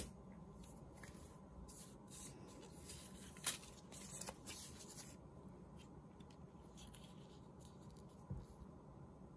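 Faint rustling and sliding of paper strips as they are picked from a pile and laid in place by hand, with a sharp tick about three and a half seconds in; the second half is quieter, with a soft thump near the end as the strip is pressed down.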